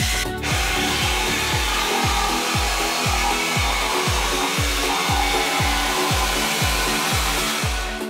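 Makita jigsaw cutting plywood: a steady rasping buzz of the reciprocating blade, with a brief break just after the start. Background music with a steady bass beat runs underneath.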